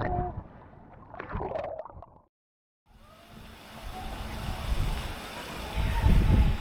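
Water sloshing and gurgling with scattered knocks, then, after a brief cut, a steady low rumble with wind noise on the microphone that grows louder near the end.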